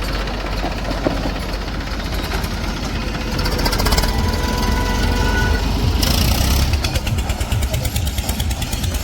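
Diesel engine of a heavy machine running, with a steady knocking rumble that gets louder about three and a half seconds in.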